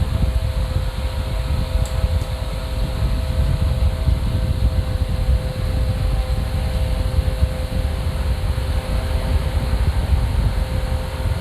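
Steady machine hum with a low rumble and a few faint steady tones, unchanging throughout.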